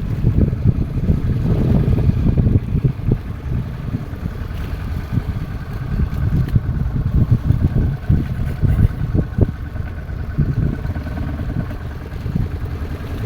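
A fishing boat's engine running steadily at sea, with wind buffeting the microphone in uneven gusts.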